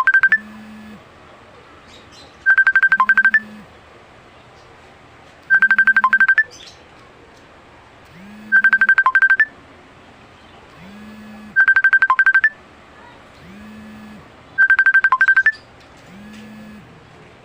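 Phone ringing: a rapid electronic trill repeating about every three seconds, about six rings, with a softer low tone between the trills.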